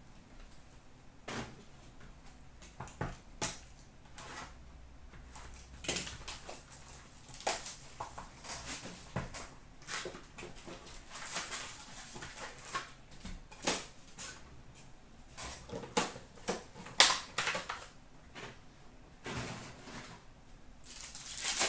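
Hands handling cardboard trading-card boxes and packs: irregular taps, clicks and brief rustles of card stock and wrappers.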